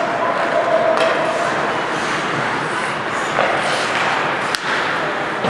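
Ice hockey game sound in a large arena: a steady wash of skates on ice and crowd noise, with voices shouting and sharp stick-and-puck knocks about a second in and again past four seconds.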